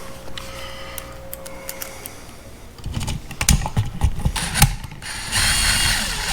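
Screws and a screwdriver being worked at an electrical box: a run of sharp clicks and knocks, then about a second of louder whirring near the end.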